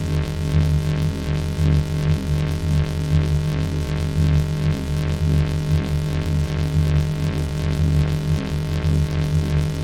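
Loud, harsh electronic buzzing drone: steady low tones stacked with higher ones, pulsing evenly at about three beats a second.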